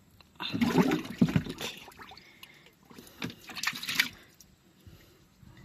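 Soapy water sloshing and splashing as an engine cylinder head is moved and lifted in a soaking tub, loudest about half a second to a second and a half in, with smaller splashes around three to four seconds in.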